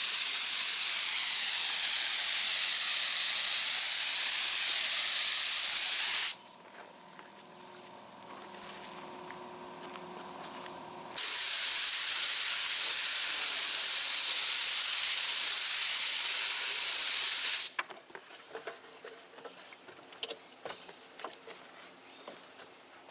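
Paint spray gun spraying thin, watery wood stain in two hissing bursts of about six seconds each, with a pause of about five seconds between them; the second burst cuts off suddenly, leaving only faint clicks and knocks.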